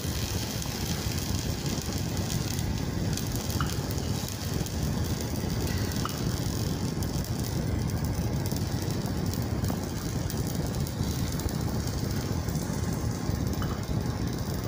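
Steady low rushing noise with a faint hiss from the stovetop as the omelette cooks in the pan, with a few faint clicks.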